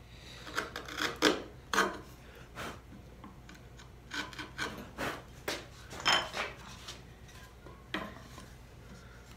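Wood chisel pushed by hand, paring thin slivers from a dovetail joint in a series of short scraping strokes, with a single sharper knock near the end.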